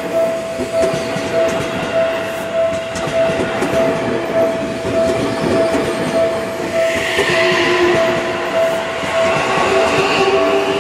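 Seibu 6000 series electric train running past close by, its wheels clattering steadily on the rails. A steady pulsing tone sounds throughout. Rising motor whine and a high hiss come in about seven seconds in.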